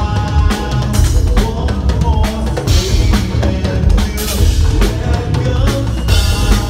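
Live progressive metal band playing at full volume: a drum kit pounding out dense kick and snare hits under bass and guitar, with the singer's vocals over the top.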